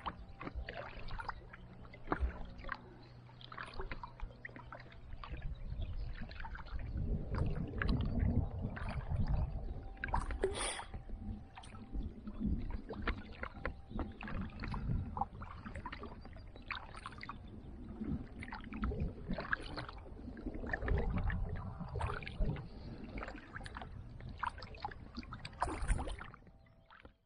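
Kayak paddling: the paddle blades dip in and out with repeated irregular splashes and drips. A low rumble of water against the inflatable hull joins in from about six seconds in, and the sound cuts off suddenly near the end.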